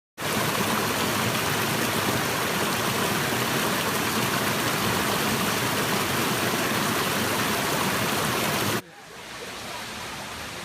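Coban Rondo waterfall: a steady rush of falling water. Almost nine seconds in it drops suddenly to a quieter rush.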